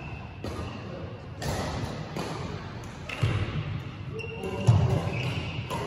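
Badminton hall sounds: court shoes squeaking on the floor, a sharp thud about three-quarters of the way through, and voices in the background, all echoing in a large hall.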